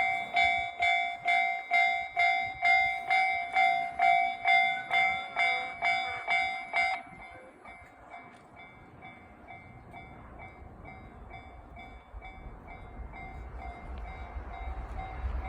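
Japanese railway level crossing's electronic warning bell ringing at about two strikes a second; about seven seconds in it drops sharply to a much lower volume and keeps ringing faintly. Near the end the rumble of an approaching train rises.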